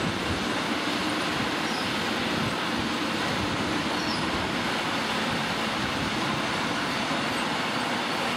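Freight train of covered goods wagons rolling past, a steady rumble and hiss of steel wheels on the rails.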